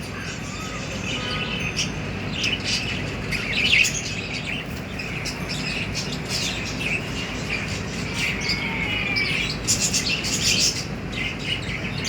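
Pet birds chirping and tweeting, short high chirps coming in clusters over a steady low background noise.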